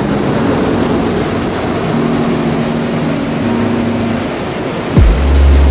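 Hot air balloon's propane burner firing: a steady, loud rushing noise. Music with a deep bass comes in near the end.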